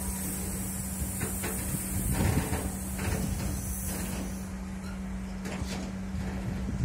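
Freight train of tank wagons rolling past, its wheels knocking over rail joints in uneven clusters of clacks, loudest about two seconds in. The rolling hiss fades after about four seconds as the last wagon moves away, over a steady low hum.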